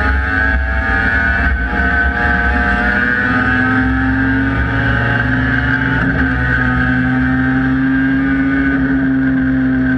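Race car engine running under steady load, its note holding level with slow, slight shifts in pitch.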